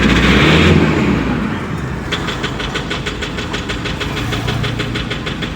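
Toyota Fortuner diesel engine dropping back from higher revs in the first second, then idling with a sharp, regular knock of about six or seven beats a second: the engine knocking fault under diagnosis.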